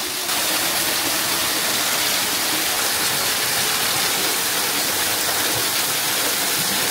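Waterfall pouring onto rocks and a shallow pool: a steady rushing hiss of falling water that gets a little louder just after the start.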